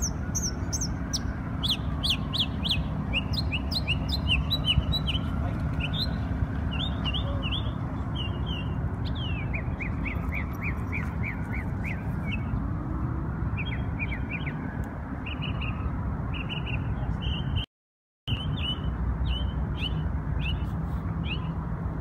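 A songbird singing a long run of short, high chirps over a steady low rumble of city traffic, with a faint tone slowly rising and falling in the background. The sound drops out for about half a second near the end.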